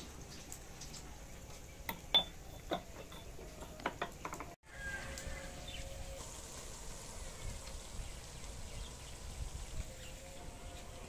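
Light clicks and taps of small clay pots being handled, a few sharp knocks close together in the first half. Steady faint outdoor background underneath. The sound drops out briefly a little before halfway.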